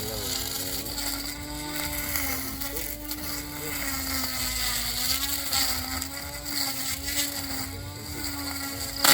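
Electric motor of a battery-powered grass cutter running at a steady speed, its hum holding one pitch that wavers slightly. A sharp knock comes near the end.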